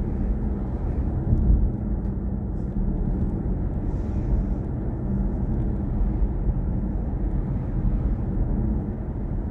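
Steady low road and tyre rumble of a BMW i4 M50 electric car driving along, heard from inside the cabin, with no engine note.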